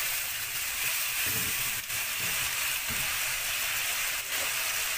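Sliced onions and tomatoes with spices sizzling steadily in a frying pan, stirred with a spatula at first, with two light knocks about two and four seconds in.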